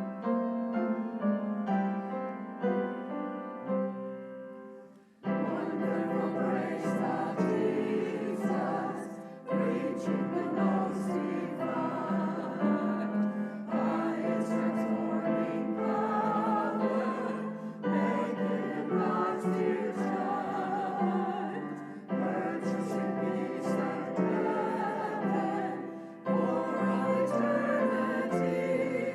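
Piano playing alone for the first few seconds, then singing with vibrato comes in about five seconds in, accompanied by piano.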